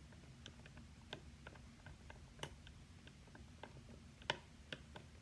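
Faint, irregular small clicks and ticks of lock picks working the pins of the ARRT lock, with a sharper click about four seconds in.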